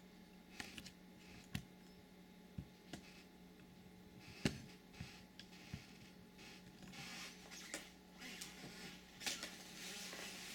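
Faint handling noise of hands working on a flat-panel TV's insides: scattered light clicks and knocks, one sharper knock about halfway through, and short stretches of rustling near the end, over a steady low hum.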